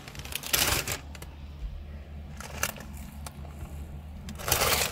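Short bursts of crinkling and handling noise: a cluster about half a second in, a brief one near the middle and a louder stretch near the end, over a low steady hum.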